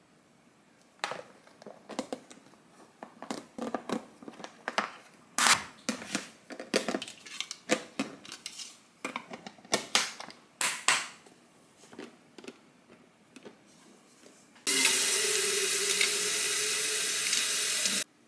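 Hard plastic lunch-box parts clicking and knocking as the boxes are closed, stacked and lidded. About fifteen seconds in, a water tap runs steadily for about three seconds and is shut off suddenly.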